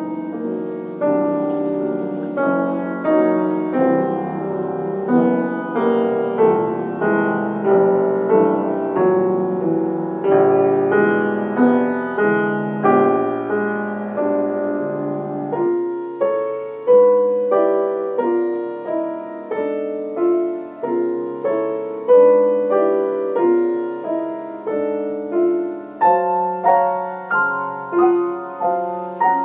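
Piano played four hands: a soft lullaby passage with a steady rocking pulse of chords, about one accent a second.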